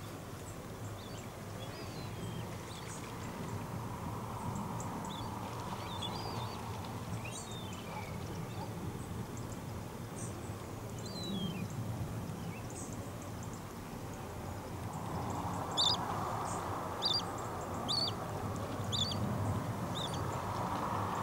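Birds calling across open water: a scatter of short high chirps, then a few louder sharp calls in quick succession about three-quarters of the way through, over a steady low background rumble.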